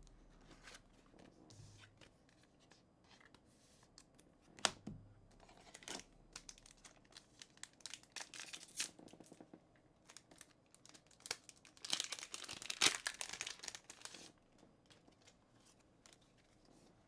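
Foil Digimon Special Release 1.5 booster pack crinkling as it is handled, with a denser burst of the wrapper tearing open about two-thirds of the way through. Light taps are scattered between.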